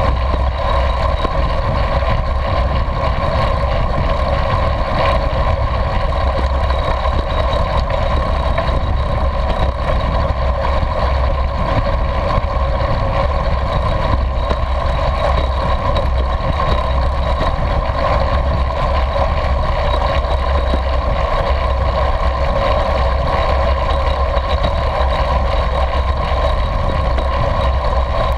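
Steady rush of wind on the microphone with road noise from a recumbent trike ridden fast, near 30 mph, with a deep rumble underneath.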